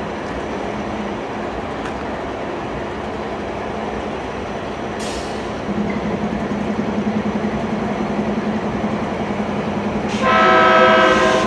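MBTA MP36PH-3C diesel locomotive approaching, its engine drone coming up about halfway through. Near the end its horn sounds one loud blast of about a second.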